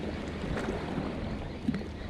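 Steady wind noise on the microphone and shallow sea water washing against shoreline rocks, with one short sharp click near the end.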